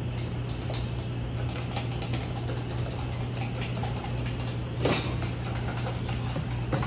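Light clicks and taps of a stainless steel milk pitcher being handled at the counter, with a sharper knock about five seconds in, over a steady low hum of room machinery.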